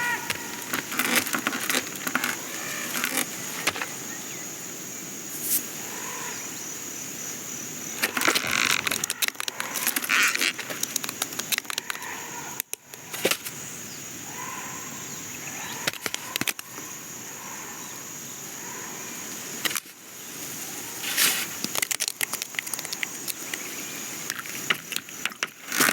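Animated-film sound effects of small creatures: a steady high insect-like buzz throughout, with many scattered clicks, patters and short rustles and a few small chirps.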